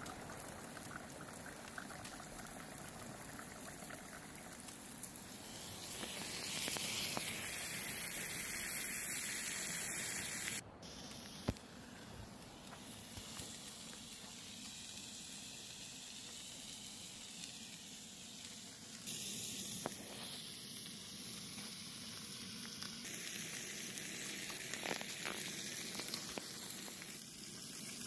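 Water pouring from a tap into a stainless steel mug, then steaks sizzling in a frying pan on a camp stove, the sound changing abruptly between clips. A few light clicks come near the end.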